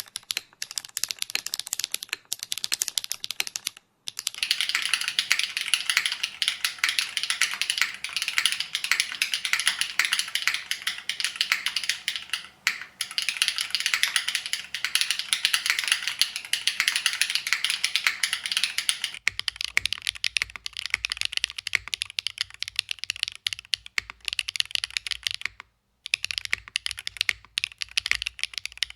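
Fast, continuous typing on a mechanical keyboard with Keygeek B1 factory-lubed linear switches, a dense run of keystroke clacks. About two-thirds of the way in the sound turns duller, with a low hum beneath it, and there are two short breaks in the typing.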